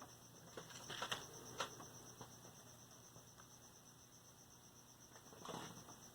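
Faint clicks and taps of tools and small parts being handled while soldering a capacitor into a radio's circuit board: a cluster of light clicks in the first two seconds and a short scraping rustle near the end. A steady faint high whine and low mains hum sit underneath.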